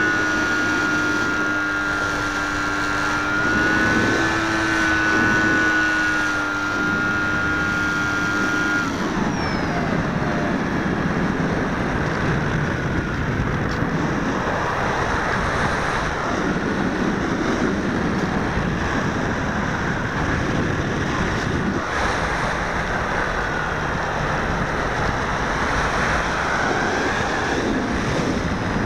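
RC model plane's motor and propeller, heard from a camera on the airframe, whining at a steady high pitch. About nine seconds in, the pitch drops away, and from then on wind rushing over the microphone fills the sound as the plane flies on.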